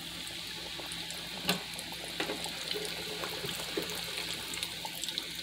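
Cornflake-crusted chicken drumsticks deep-frying: hot oil bubbling and sizzling steadily, with scattered crackles and one sharper pop about a second and a half in.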